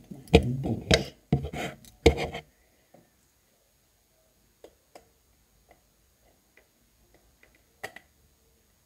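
Makeup items handled on a table: a cluster of knocks and rustles in the first two and a half seconds, then scattered faint clicks, with one sharper click near the end.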